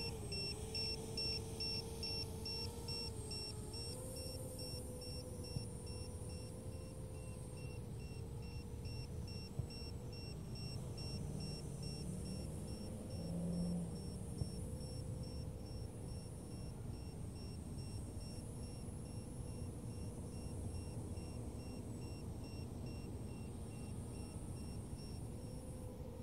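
Multirotor drone's motors and propellers humming steadily, the pitch wavering up and down as the throttle changes. A rapid, regular high beeping, a few beeps a second, runs alongside the hum.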